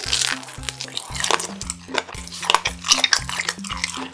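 Close-up wet chewing of a mouthful of cheese kielbasa sausage, many small moist clicks and smacks, over background music.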